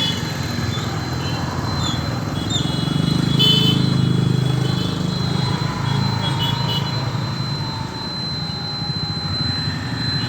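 Road traffic: vehicle engines running in a steady rumble, with several short horn toots, the loudest about three and a half seconds in, and a thin steady high whine under it.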